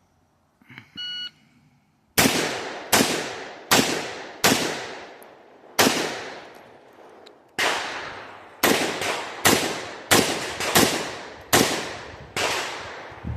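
A shot timer beeps once, then single rifle shots follow. Five come about one a second, a gap of nearly two seconds marks the change from standing to kneeling, and more shots follow, a few of them closer together.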